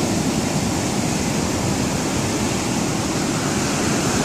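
Ocean surf breaking and washing up the beach: a steady rush of waves with no let-up.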